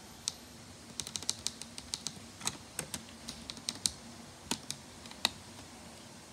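Irregular sharp clicks and taps of fingers handling snap-together plastic Snap Circuits parts, about two dozen in all, with a faint steady low hum underneath.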